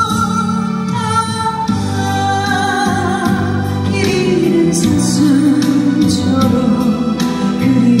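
A woman singing a Korean ballad into a microphone over an instrumental backing. The first half is mostly the accompaniment; her voice comes in about halfway.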